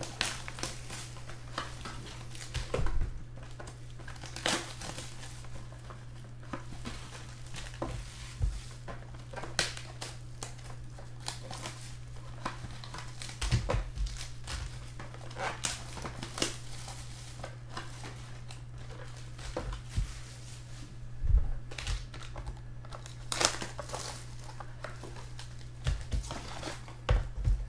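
Clear plastic wrap and foil card packs crinkling and tearing as sealed trading-card boxes are unwrapped by hand, in irregular crackles with a few louder thumps. A steady low hum runs underneath.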